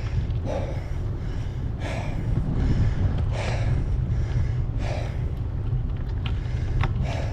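A cyclist breathing hard on a steep climb: five heavy, gasping breaths about every second and a half, over a steady low rumble.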